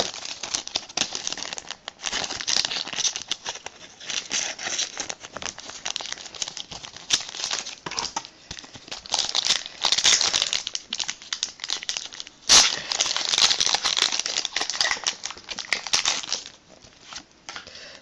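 Foil Pokémon booster pack wrapper crinkling and being torn open by hand, a dense crackle with one sudden loud rip about two-thirds of the way through; the handling goes quieter near the end.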